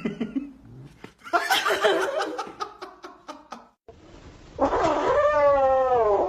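Cats yowling: a short cry at the start, then, after a change of clip, one long wavering yowl that runs through the last second and a half.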